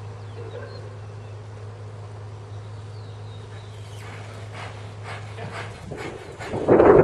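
A horse's hoofbeats on arena footing over a steady low hum. A loud rush of noise swells up near the end.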